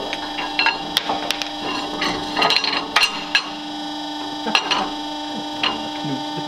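Metal clinks and knocks of a steel shaft with its bearings being worked out of a rusty track drive sprocket on a press and set down on the sprocket: about a dozen irregular sharp strikes, bunched in the first three and a half seconds, with a few more later.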